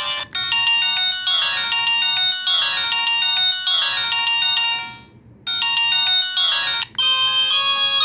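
Default ringtones of a Samsung SCH-B309 mobile phone playing from its small loudspeaker: bright electronic melodies, one tune after another, each cut off abruptly as the next is selected, with changes about a third of a second in and about seven seconds in and a short break just after five seconds.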